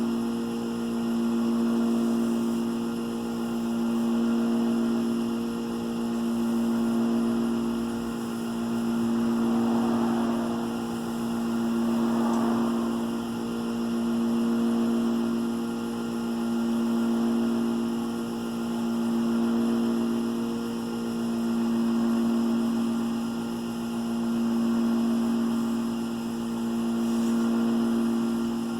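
Wood lathe running at steady speed, its motor giving a constant hum that swells and fades about every two and a half seconds. About ten seconds in comes a brief soft rubbing as abrasive paste is worked onto the spinning walnut.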